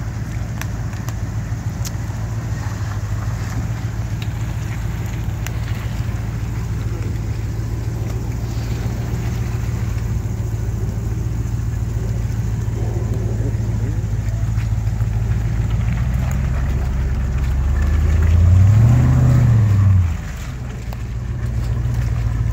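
Range Rover Classic's 3.9-litre Rover V8 engine running at low revs as the truck crawls off-road, then revving up and back down once for about two seconds near the end as it climbs a mound, the loudest part, before the revs drop off suddenly.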